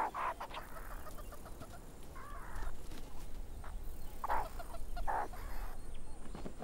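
Meerkats giving short, harsh alarm calls, about four in quick succession, at a lanner falcon attacking overhead.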